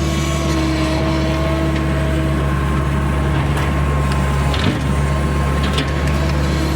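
Skid steer's diesel engine running steadily, with a steady whine over the drone and two brief knocks in the second half as the machine works the rocks.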